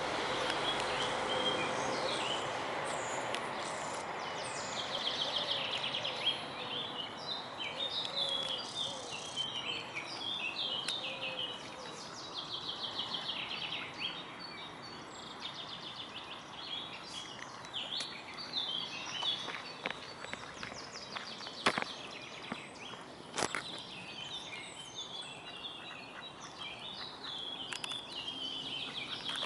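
Many short, high bird chirps throughout over a steady outdoor background hiss, with two sharp clicks about three quarters of the way through.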